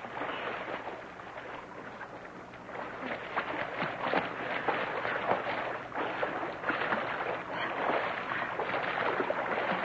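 Water splashing and sloshing as two people swim and thrash about, irregular and choppy, growing louder about three seconds in.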